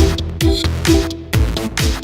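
Electronic background music with a steady, driving kick-drum beat about twice a second and sustained synth notes over it.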